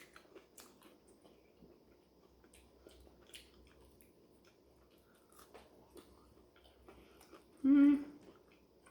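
A person chewing chicken nuggets with mouth open to the mic: faint, irregular wet clicks. Near the end comes a short, louder hummed "mm".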